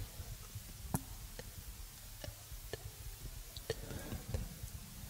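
Close-miked ASMR trigger sounds: irregular sharp clicks and light taps, about one a second, over soft low thumps.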